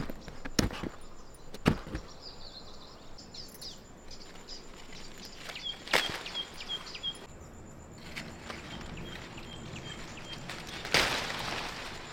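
Guavas being picked by hand: sharp knocks as fruit drops into a cloth bag onto other guavas, a snap as another is plucked from the branch about halfway through, and a burst of leaf rustling near the end. A bird chirps in two quick series of short high notes.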